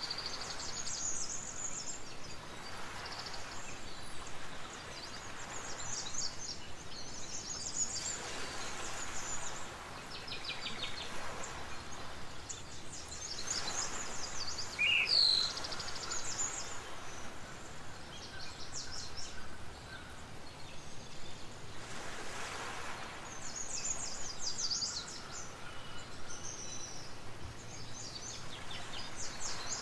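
Birds chirping and trilling over a steady hiss of background noise, with one louder whistled call about halfway through.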